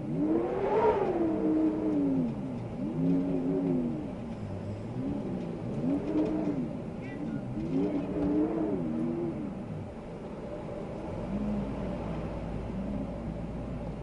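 Wind howling in gusts, its pitch swelling up and falling back every second and a half to two seconds over a steady rush. After about ten seconds the howl weakens and a low steady rumble comes in beneath it.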